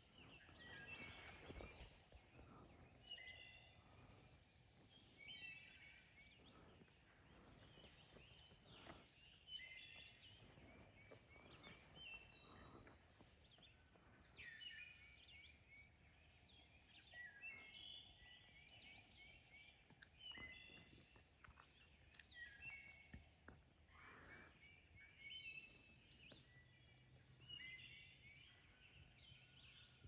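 Quiet woodland with songbirds singing, short chirping phrases repeating every couple of seconds, and a few faint rustles in between.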